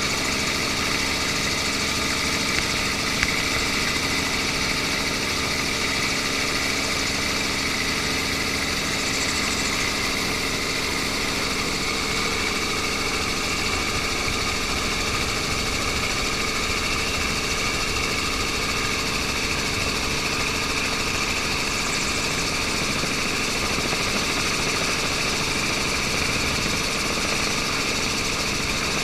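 Steady motor noise: a low hum with a high, even whine above it, holding constant pitch and level throughout.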